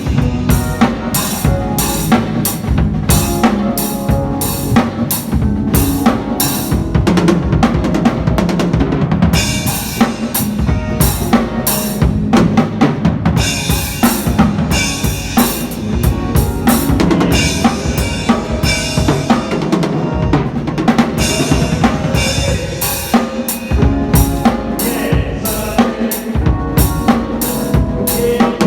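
Drum kit played as a fast, busy solo: rapid drum strokes under frequent bright cymbal hits, with steady low notes underneath.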